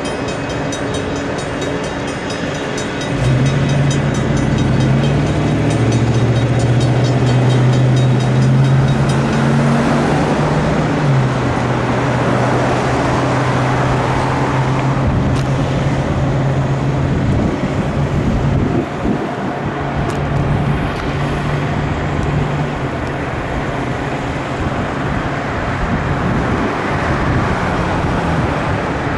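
Amtrak San Joaquins passenger train rolling through a grade crossing: a steady rumble of wheels on the rails, joined about three seconds in by a louder low hum that shifts in pitch a few times. Crossing bells ring rapidly in the background, most clearly during the first ten seconds.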